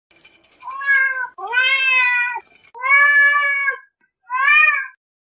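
A cat meowing four times in long, drawn-out meows, each rising and falling in pitch; the last one is shorter.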